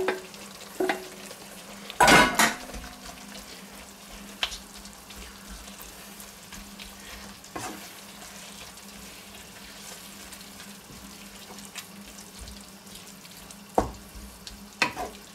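A wooden spoon stirring meat into a creamy sauce in a wok, with a soft sizzle as the food heats. About two seconds in, the spoon knocks loudly against metal. A few lighter taps follow, one of them near the end.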